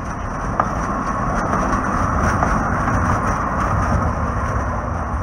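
Two-car Breda light rail train passing close by: a rumble of wheels on rail with a hiss that builds to a peak midway and then eases off, and a sharp click about half a second in.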